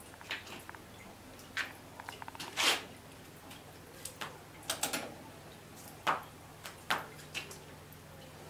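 Wooden papermaking mould and bamboo screen being handled over a vat of wet pulp: water drips and splashes off the frame, with light clicks and knocks of the wood. The loudest is a longer splash about a third of the way in.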